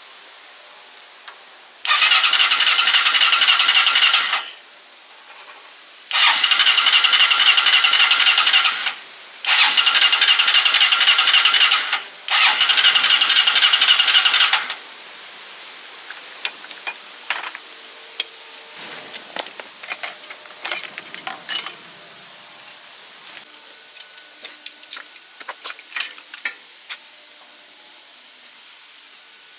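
Four loud bursts of machine noise, each two to three seconds long with short gaps between, starting and stopping abruptly. After them come scattered light clicks and taps.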